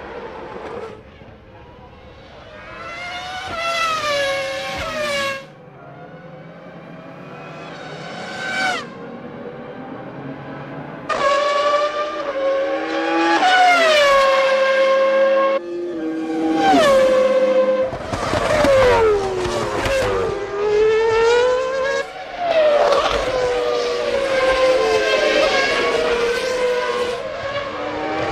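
1997 Formula One cars' high-revving engines passing, pitch climbing through the gears and then falling away. At first single cars come through with gaps; from about eleven seconds in the engine sound is louder and almost continuous, with several cars overlapping.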